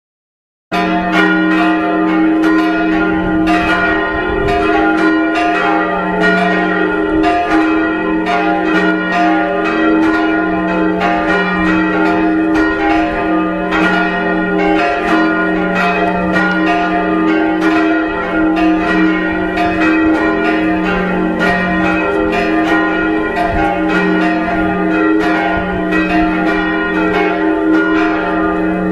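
Church bells ringing for a funeral: several bells struck over and over in quick succession above their lingering hum. The sound cuts in abruptly about a second in.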